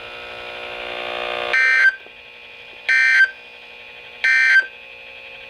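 Weather radio broadcast's Emergency Alert System end-of-message code: three short, identical buzzing data bursts about 1.3 s apart, closing the alert. A steady electronic hum from the radio runs underneath, louder over the first second and a half.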